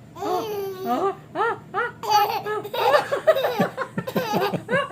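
Baby laughing in a run of short, repeated bursts, set off by his mother's pretend sneezing.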